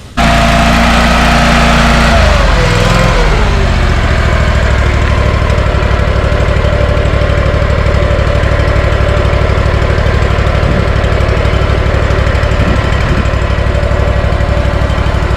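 An engine running loudly and steadily, starting abruptly, with its pitch dropping briefly about two to four seconds in.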